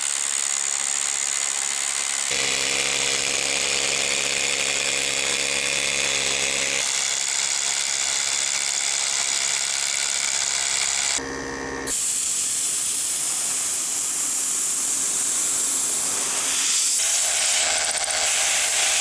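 Corded rotary hammer drill boring through a wooden sill plate into the concrete foundation beneath, running steadily with a brief stop about eleven seconds in.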